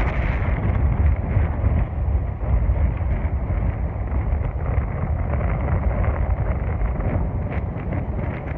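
Wind buffeting the microphone with a heavy, steady low rumble, over the wash of sea waves breaking on rocks.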